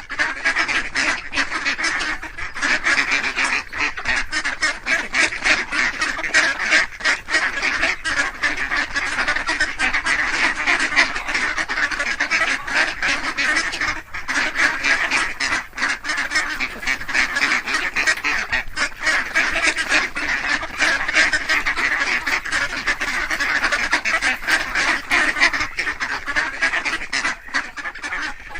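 A flock of ducks quacking, many calls overlapping without a break.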